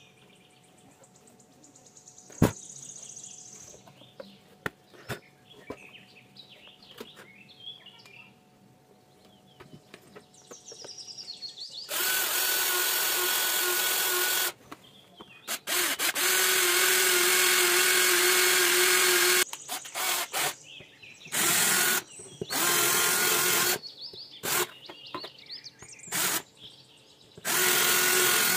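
Cordless drill boring through a clear plastic disc. It starts about twelve seconds in, runs twice for a few seconds each time, then goes in short bursts. Before it starts there are only a few light clicks and bird chirps.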